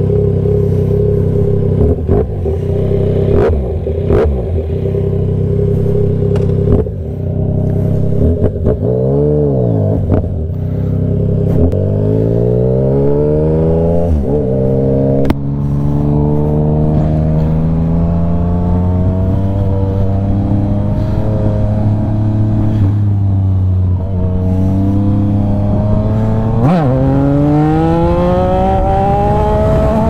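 Yamaha MT-09's inline-three engine idling, with a few sharp clicks, then blipped once. It then pulls away, rising in pitch and shifting up through the gears, holds a steady cruise, and revs up again near the end.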